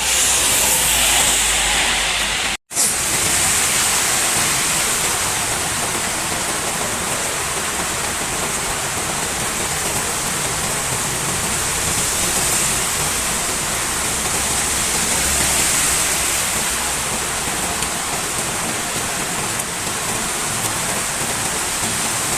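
Heavy rain pouring down in a steady, loud hiss, broken by a split-second gap about two and a half seconds in.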